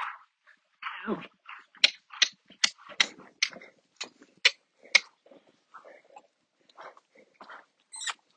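A dog at close range, with a short falling sound about a second in, then a run of about ten sharp clicks over some three seconds and softer scattered noises after.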